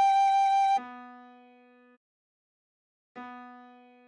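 Tin whistle holding the tune's final note, a G with a slight vibrato, which stops just under a second in. Then a single low keyboard note sounds and fades, and is struck again about three seconds in.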